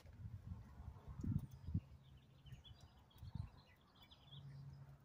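Faint birds chirping in the background over irregular low rumbles of wind buffeting the microphone. A low steady hum comes in near the end.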